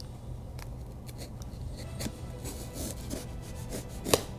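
Quiet picking and scraping at heavy-duty plastic packing tape on a cardboard box: scattered light scratches and ticks, with one sharper click about four seconds in.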